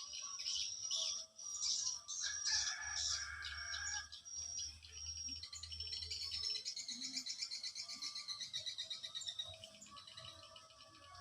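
Birds chirping and calling in quick, varied phrases, then a fast, even trill that fades toward the end.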